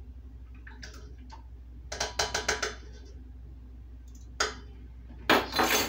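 Clicks and clinks of a glass olive-oil bottle and its cap being handled: a few faint clicks, then a quick run of about six sharp clicks, a single click, and a louder clatter near the end.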